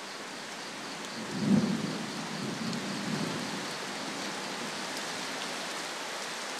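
Heavy rain falling on a river's surface, a steady hiss, with a low rumble swelling and fading about a second and a half in.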